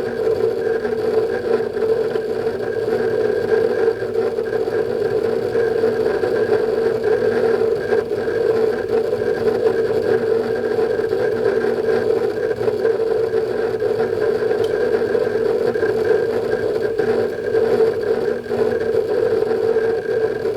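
Synology DS220+ NAS with Western Digital Ultrastar hard drives running under a benchmark load: a steady mechanical hum with faint, irregular clicks, typical of drive heads seeking.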